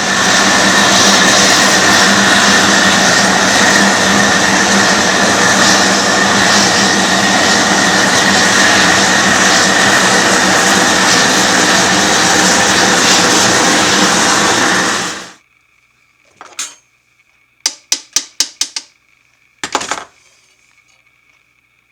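Large gas torch burning with a loud, steady rushing hiss, heating a copper boiler for silver soldering. It is shut off suddenly about 15 seconds in, followed by a few sharp clicks.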